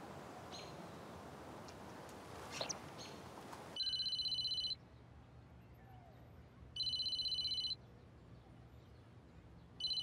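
Faint outdoor ambience with a few bird chirps, then a keypad mobile phone ringing: a shrill, trilling electronic ring in bursts about a second long, coming about every three seconds.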